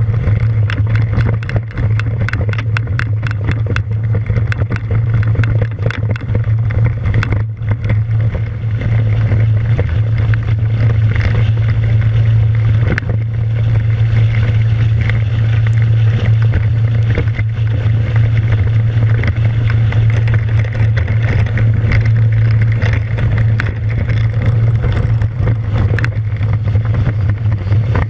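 Rotax 582 two-stroke engine and propeller of a Kitfox ultralight running steadily in flight, a constant low drone with wind rushing over the microphone.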